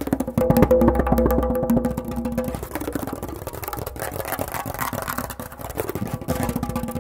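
Solo tombak (Persian goblet drum) played in fast, dense finger-stroke rolls, the drumhead ringing with each stroke. The playing is strongest at the start, thins through the middle, and builds again near the end.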